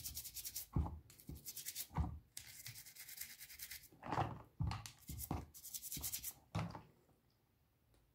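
Toothbrush bristles scrubbing a wet amplifier control knob in a series of short strokes that fall silent near the end.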